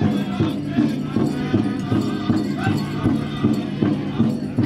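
Powwow drum and singers: a large drum struck in a steady beat, about two to three strokes a second, under a group of voices singing a chanting song.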